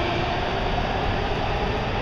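Washington Metro train approaching the platform: a steady rumble of wheels on rail with a faint steady hum running through it.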